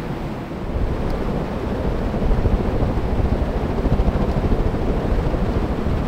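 Dozens of ceiling fans running at once: a steady rush of moving air with an uneven low rumble, the fans' downdraft buffeting the microphone.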